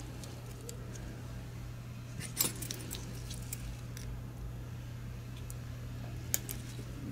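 Small sharp clicks and metallic ticks as a microswitch is set onto a mouse's switch board and clamped in place with steel locking forceps. There is a cluster of clicks about two and a half seconds in and one sharp click near the end, over a steady low hum.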